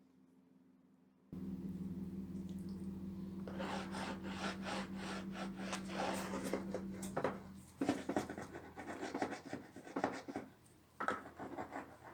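Hand strokes rubbing and scraping across a wooden tray's surface, quick and uneven, starting a few seconds in. A steady low hum begins abruptly just over a second in and stops about seven seconds in.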